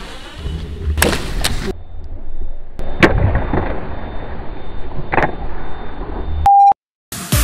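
DJI F450 quadcopter crashing: a series of sharp crashes and knocks as it hits hard ground and tumbles, the first about a second in and the last about five seconds in. A short high beep sounds near the end, followed by a moment of silence.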